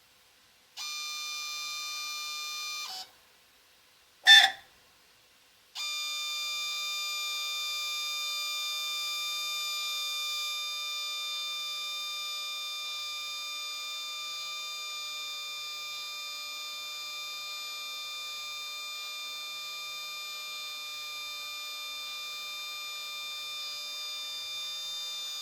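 Multisampler valve of an Apollo DIC C5 analyser screeching as it initializes and switches inputs: a steady high-pitched squeal of several tones for about two seconds, a sharp click, then the squeal again without a break for about twenty seconds.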